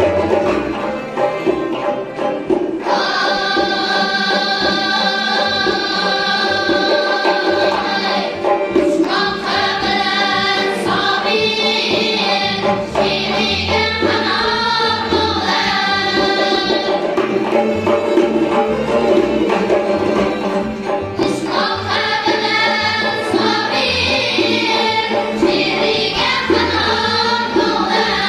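A boys' choir singing a Central Asian folk song, holding long notes, accompanied by a doira frame drum and plucked and bowed string instruments. The voices come in strongly about three seconds in.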